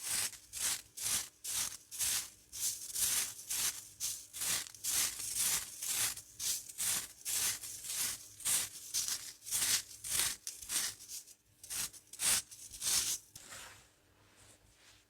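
Crunchy baked baking soda pebbles being crushed: a quick run of crisp crunches, about two to three a second, that stops a second or so before the end.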